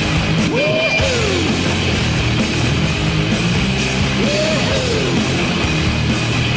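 Loud hard-rock goal song played after a hockey goal horn, with a swooping figure that rises and falls and recurs about every three and a half seconds.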